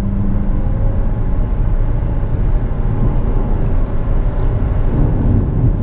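Jeep Compass 2.0 turbodiesel engine pulling hard under full-throttle kickdown, heard from inside the cabin with road and tyre noise, the transmission held in gear in manual mode.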